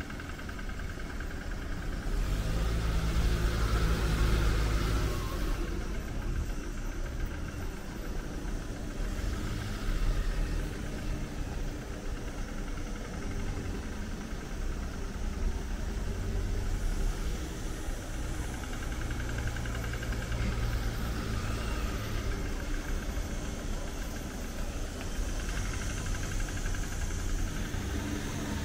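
Street traffic: cars' engines running as they pass and idle. The loudest pass comes about two to five seconds in, with further swells later on.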